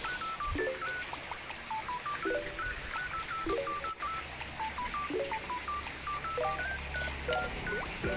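Electronic background music made of rapid, evenly repeating beeps that hop between a few pitches, like a phone keypad melody, with lower note clusters coming in every second or so.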